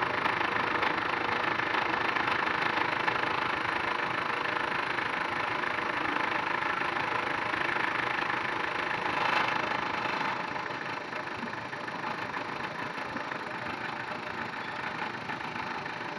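Milling machine running with a fly cutter, facing a surface: a steady machining noise that swells briefly and then eases a little about ten seconds in.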